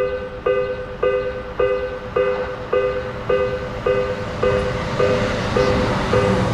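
Japanese railroad crossing warning bell ringing: a two-tone electronic 'kan-kan' strike repeating a little under twice a second, the signal that a train is coming. A train's rumble grows underneath toward the end.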